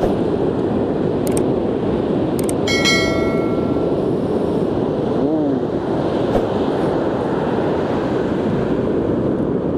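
Steady rumble of surf and wind on the microphone. Two clicks, then a short bright chime about three seconds in: the sound effect of a subscribe-button animation.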